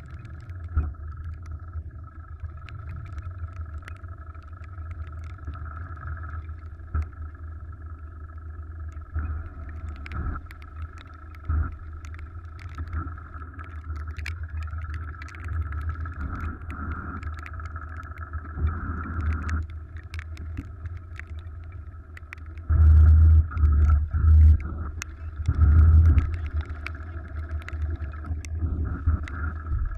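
A wooden sailing yacht's inboard engine runs steadily as the boat motors under furled sails, a low drone with a faint steady whine above it. Scattered small ticks throughout, and a few loud low buffets near the end.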